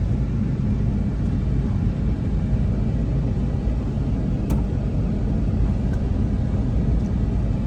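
Steady low rumble of road and engine noise inside a car's cabin as it moves slowly in traffic on a rough road, with one faint click about halfway through.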